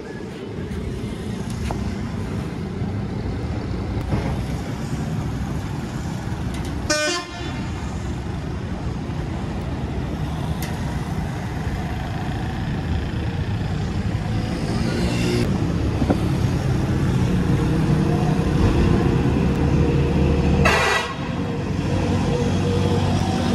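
Busy street traffic: motor engines running close by, louder and climbing for a while in the second half, with vehicle horns sounding.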